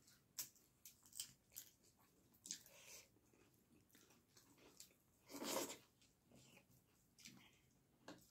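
Quiet eating sounds: short, sharp mouth smacks and chewing clicks, with one louder, longer smack about five and a half seconds in.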